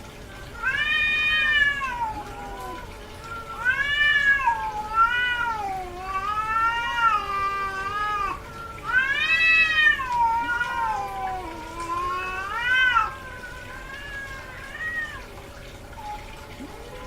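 Cat in heat calling: a run of long, drawn-out meows that rise and fall in pitch, one after another, becoming weaker about thirteen seconds in.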